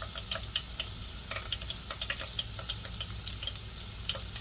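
Hot cooking fat sizzling, with irregular sharp crackling pops over a low steady hum.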